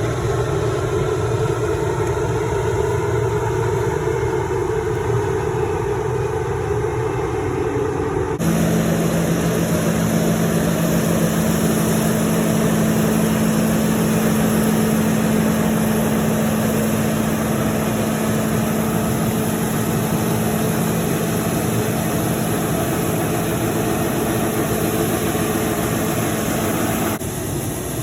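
A combine harvester running steadily at work: a constant engine and machinery drone, heard from the cab. About 8 seconds in the sound changes abruptly to a steadier hum with a low pitched tone, and near the end it changes abruptly again.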